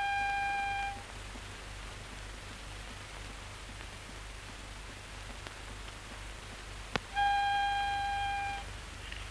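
Two steady pitched tones, one about a second long at the start and one about a second and a half long near the end, the second just after a sharp click, over the steady hiss and low hum of a 1930s film soundtrack.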